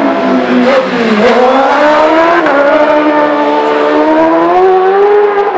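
Racing motorcycle engine at high revs, its pitch dipping about a second in and then climbing steadily as it accelerates.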